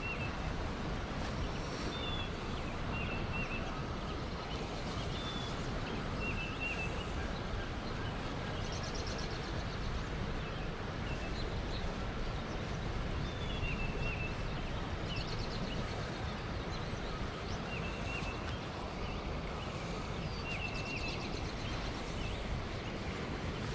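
Steady rush of a stream running high, with small birds chirping repeatedly over it and a few short trills.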